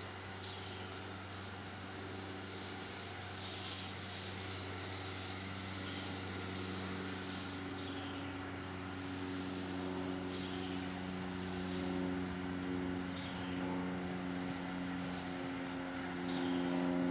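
Small-gauge live steam locomotive working. Rhythmic exhaust chuffs for about the first seven seconds give way to a steady steam hiss over a low hum.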